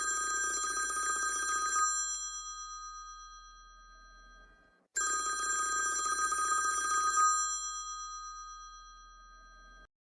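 Electromechanical double bell, as in an old landline telephone, its clapper rattling rapidly between two gongs. It rings twice, each ring about two seconds long, and the tone hangs on and fades after each ring.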